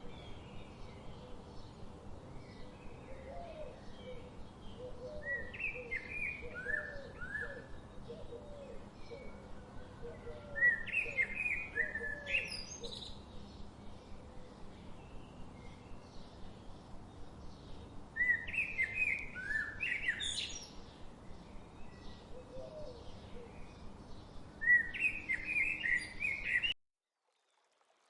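Songbirds singing short, bright, repeated phrases in bursts, with a series of lower chirps in between, over a steady background hiss. The sound cuts off abruptly near the end.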